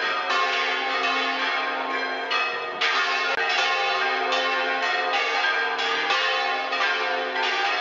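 A peal of church bells ringing, several bells sounding together with a new stroke about twice a second over their ringing tones.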